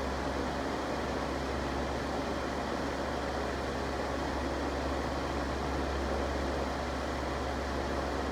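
An electric fan running steadily: an even rush of air with a low hum underneath, unchanging throughout.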